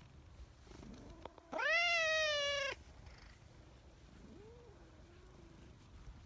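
A brown tabby cat gives one loud, drawn-out meow lasting just over a second, its pitch sinking slightly, about one and a half seconds in. A much softer, lower mew follows near the five-second mark.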